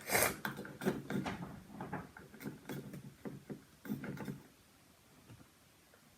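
Irregular small clicks and scrapes of slime base being stirred in a bowl as food colouring is mixed in. The sounds stop about four and a half seconds in.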